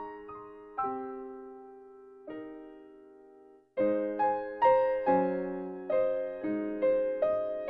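Background piano music: slow notes struck and left to fade, a short break about three and a half seconds in, then a louder, busier run of notes.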